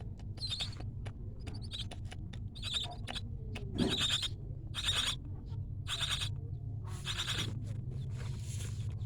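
Young starling chicks giving short, harsh calls, about one a second, over a steady low hum.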